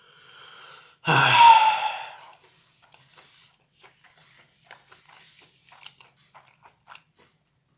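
A person lets out a loud voiced sigh about a second in, lasting about a second, then faint mouth clicks of chewing follow.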